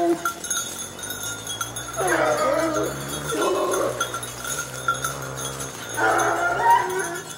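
A pack of Grand Gascon hounds baying, several long drawn-out voices overlapping, in bouts about two seconds in, again around three and a half seconds and near the end: the pack giving tongue as it works the scent line of a wild boar.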